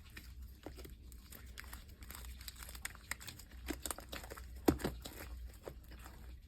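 Sticky, dough-like slime being handled by hand: an irregular run of small crackling, tearing clicks as it is pulled and squeezed, with one sharper snap near the middle.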